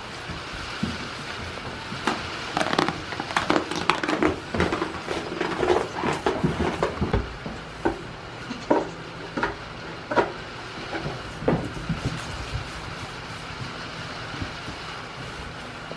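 Irregular knocks, clatters and scrapes of a goat pawing at a plastic feed bowl on straw bedding, densest in the first half and thinning out after about twelve seconds, over a steady background rush.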